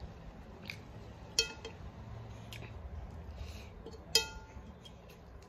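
Stainless steel plate clinking twice, about a second and a half in and again about four seconds in, each time with a short metallic ring, as a hand eating rice from it knocks against it. Fainter small clicks of hand-eating come in between.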